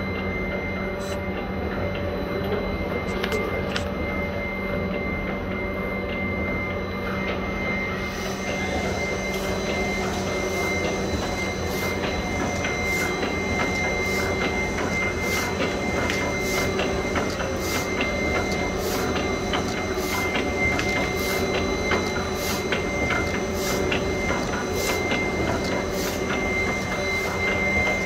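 Web-fed label printing machine with UV, lamination and die-cutting units running: a steady mechanical hum with a constant high whine. From about a third of the way in, a regular tick comes in about one and a half times a second.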